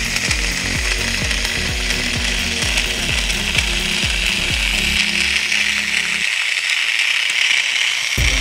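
Background music with a steady beat; the bass drops out for about two seconds near the end.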